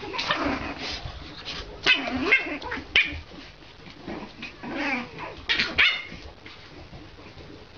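French bulldogs, puppies among them, yipping and barking in short bursts as they play, with a few calls at a time and quieter in the last couple of seconds.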